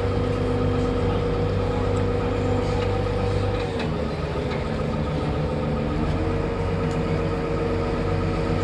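Engine of a Venetian water bus (vaporetto) running steadily under way. Its note dips and wavers about four seconds in, then settles into a steady note again about two seconds later.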